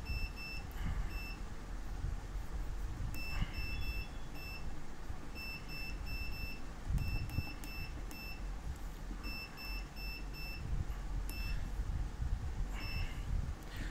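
Short, high key-press beeps from a Smart DPU dairy data processor's keypad, one beep per key, in quick runs of three to eight with pauses between.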